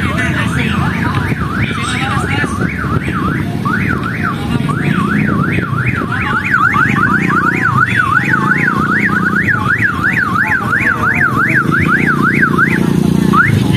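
Electronic warbling siren tone sweeping up and down in pitch, quickening midway to about three sweeps a second and breaking off near the end, over a steady low rumble.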